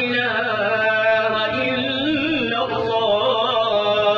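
A man chanting into a microphone in a long-drawn, melodic voice, holding and slowly bending each note.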